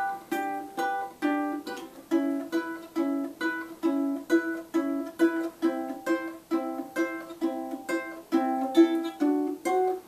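Solo ukulele playing the instrumental introduction of a song, chords plucked or strummed at about two strokes a second, each ringing and fading before the next.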